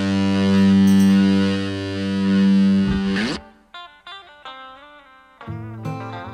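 Background rock music: a loud, distorted electric guitar chord rings out and cuts off about three seconds in. Quieter guitar picking follows, joined near the end by fuller strumming.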